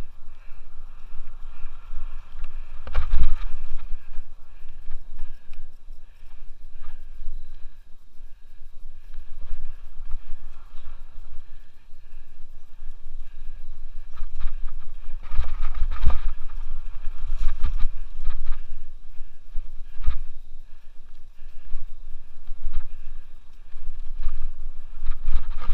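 Mountain bike ride on a Scott Aspect 770 hardtail down a leaf-covered dirt singletrack: wind buffeting the helmet-camera microphone in a constant low rumble, with tyre noise and the bike's clunks and rattles over bumps. The clunks are heaviest about three seconds in, around sixteen and twenty seconds, and at the very end.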